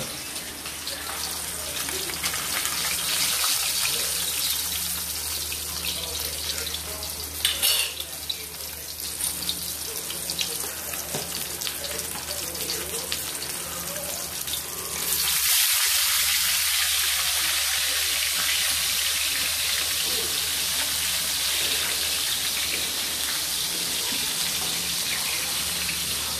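Whole tilapia frying in oil in a wok, a steady sizzle that turns suddenly louder and hissier about halfway through, with a brief clatter of metal near a third of the way in.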